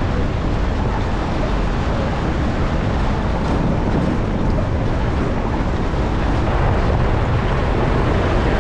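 Steady rumble with wind noise on the microphone, unbroken and even in level.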